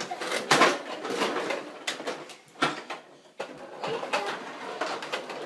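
Plastic toy vehicles being handled and knocked on a wooden floor: a few irregular clacks and knocks, with a small child's brief, soft vocal sounds in between.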